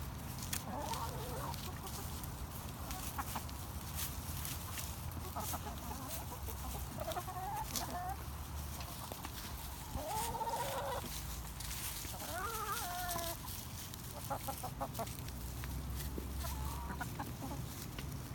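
Backyard laying hens clucking and calling in short, scattered notes while they peck at food, with many sharp clicks from pecking.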